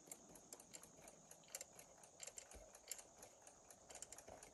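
Faint, irregular clicking from a Westclox Big Ben wind-up alarm clock as its hands are spun round by the setting knob. No alarm bell rings: the alarm mechanism is not working.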